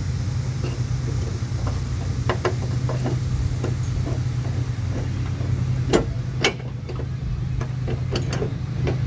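Light metallic clicks and taps of a bolt and washer being fitted by hand into a steel tailgate hinge, with a sharper click about six seconds in. Under them runs a steady low hum, like an idling engine.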